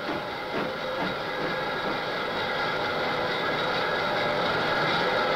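Steam locomotive running under test on the rollers of a locomotive testing plant: steady mechanical running noise with whining tones, growing slowly louder, with a few knocks in the first second.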